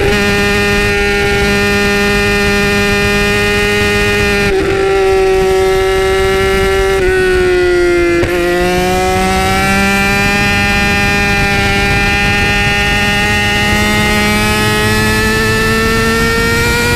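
2008 Yamaha R6's inline-four engine through an Akrapovic exhaust, running at high revs while riding. The high-pitched note holds steady, sags about halfway through, then climbs slowly to the end.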